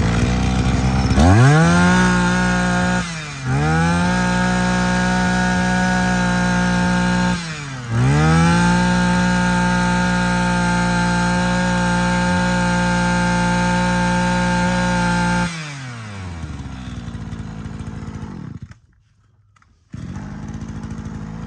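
Shindaiwa S23 23cc two-stroke brush cutter engine revved hard from idle three times, each time sweeping quickly up to high revs. The last rev is held steady for about seven seconds before it drops back to idle. Near the end it goes briefly quiet, then idles again. The revs climb very fast, a sign of a strong, healthy engine.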